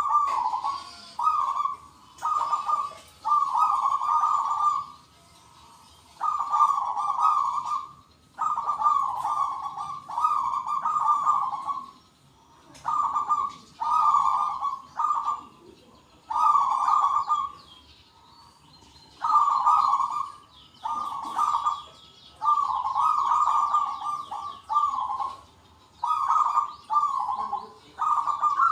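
Zebra doves cooing loudly, several birds answering one another in repeated bursts of rapid coos with short pauses between them, and fainter high chirping in the background.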